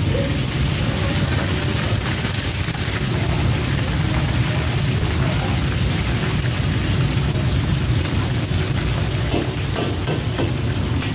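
Lobster pieces deep-frying in a wok of hot oil, sizzling steadily, over the steady low rumble of a gas wok range.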